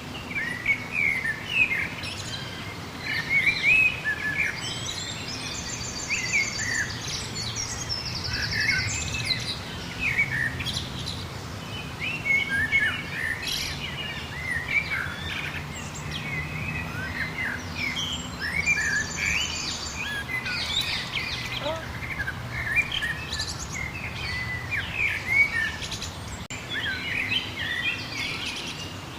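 Chorus of several songbirds chirping and calling, with a fast, high trill twice: once about six seconds in, and again a little past the middle.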